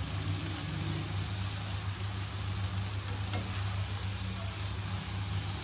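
Boiled urad daal sizzling in a nonstick frying pan while a spatula stirs and scrapes through it, a steady frying hiss over a low hum. This is the bhunai stage, where the daal is fried down in the pan.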